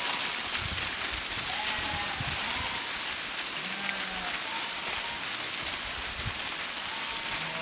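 A flock of sheep walking over dry fallen leaves, with many hooves making a dense, continuous rustling crunch. Now and then a sheep gives a faint bleat.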